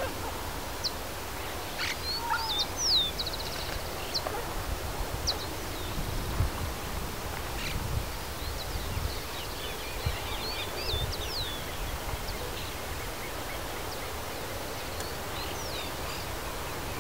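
Outdoor countryside ambience: scattered short bird chirps and calls, with a quick trill about three seconds in and a cluster of calls around eight to twelve seconds, over a steady low rumble of wind.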